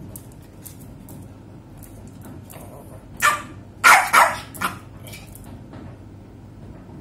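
Small poodle barking, four quick barks a bit past halfway, while being teased with a toy held just out of reach.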